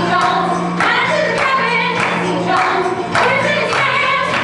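A woman singing a song over instrumental accompaniment.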